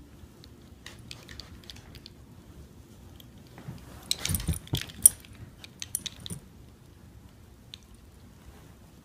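A dog's metal chain collar and tags jangling in a few short bursts of clinking about four to six seconds in, as the dog moves its head.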